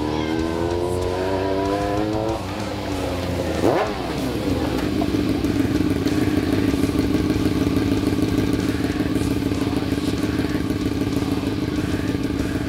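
2002 Honda CBR F4i inline-four engine through a GP shorty slip-on exhaust, revving. The revs climb slowly for about two seconds, drop, and blip sharply once near four seconds in, then hold steady at raised revs.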